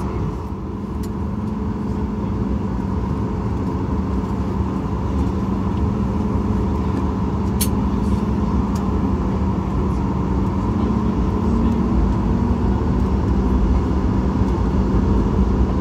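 Cabin noise of a Boeing 737 MAX 8 taxiing: its CFM LEAP-1B engines humming at idle with a steady tone over a low rumble, slowly growing a little louder. A single sharp click about halfway through.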